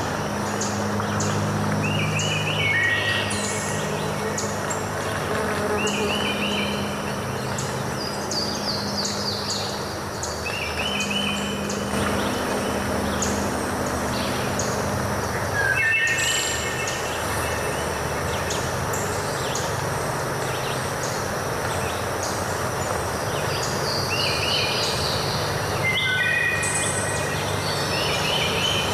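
Steady rush of a waterfall, with birds singing over it: one bird repeats a short phrase every few seconds while others chirp. A low steady hum sits underneath for the first half.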